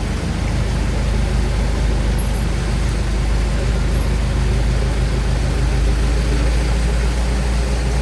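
A car driving along: a steady low engine and road rumble with tyre noise.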